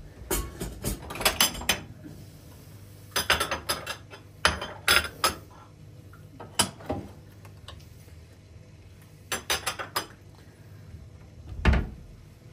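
Ceramic plates and dishes clinking and knocking on a stone countertop in short bursts of clatter. A heavier thud near the end is the loudest sound.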